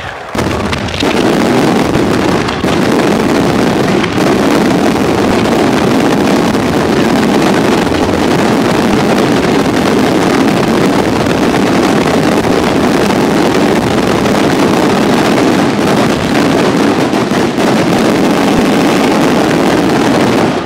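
Bolognese firework battery going off at ground level: firecrackers and fountains detonating so rapidly that they merge into one loud, steady din. It builds within the first second and cuts off suddenly near the end.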